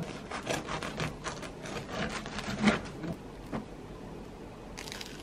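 Serrated bread knife sawing back and forth through the crisp crust of a round loaf, a run of rasping, crackling strokes that is loudest about two and a half seconds in and stops about a second later.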